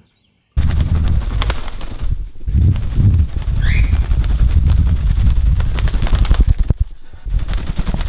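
Indian ringneck parakeet beating its wings close to the microphone, a loud rapid fluttering with a low rumble that breaks off briefly near the end, and one short rising chirp about three and a half seconds in.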